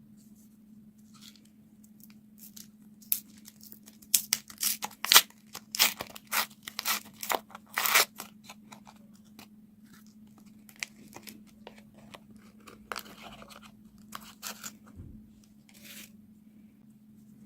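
Candy packaging being opened: a run of sharp crackling and tearing sounds, dense and loud a few seconds in, then scattered crackles later on.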